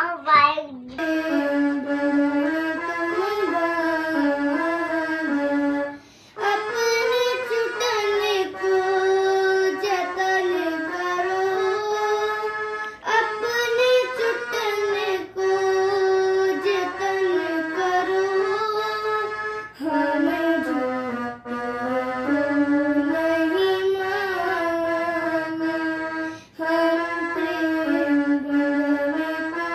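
Electronic keyboard playing a slow melody of long held notes, in phrases that break off briefly every few seconds.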